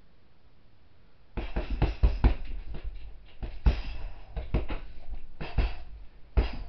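Hand-wrapped fists punching a hanging heavy bag: a quick series of loud thuds in flurries, starting about a second and a half in.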